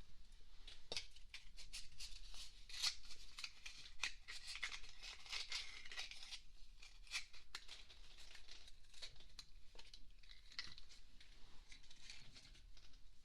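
Ear candle being lit and burning close to the ear: an irregular crackling and rustling, dense for the first several seconds and sparser after.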